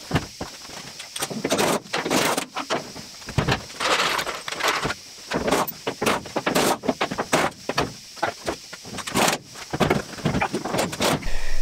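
A 1974 Dodge Challenger's heavy steel door being unbolted and worked off its hinges: irregular metal clanks, knocks and rattles.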